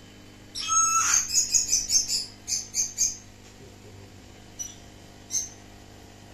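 Small bird chirping: a quick run of high chirps, then three single chirps spaced about a second apart, over a faint steady low hum.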